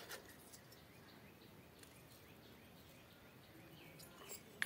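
Near silence: faint room tone with small chirps repeating evenly in the background, several a second, and a short click at the start and another at the end.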